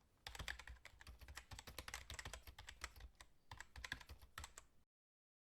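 Rapid, irregular keyboard typing clicks that cut off abruptly near the end, leaving dead silence.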